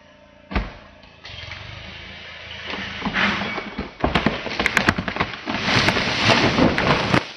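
A large tree coming down onto a house: a single thump, then a dense run of cracking and snapping wood and branches crashing that builds for about four seconds and stops abruptly.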